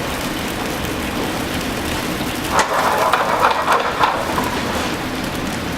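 White wine with shallots and garlic sizzling steadily in a hot pan as it reduces by half, with a short run of crackles and clicks a couple of seconds in.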